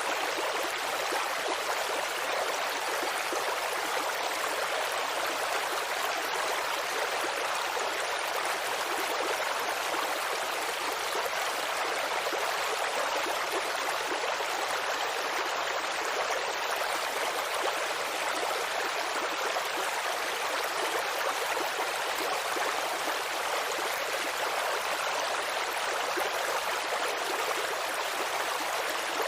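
Campfire crackling steadily: a dense, continuous hiss of small crackles and pops with no single loud snap.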